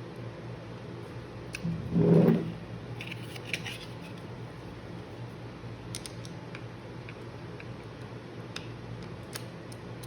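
A screwdriver working the small chain-tensioner adjusting screw on a Saker mini electric chainsaw: scattered light metallic clicks and scrapes over a steady low hum.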